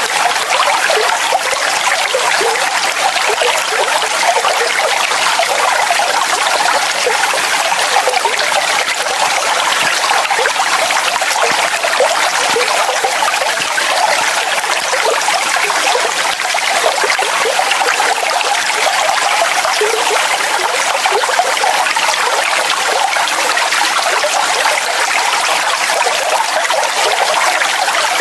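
Waterfall: water falling and splashing in a steady, unbroken rush, bright and trickling with little deep rumble.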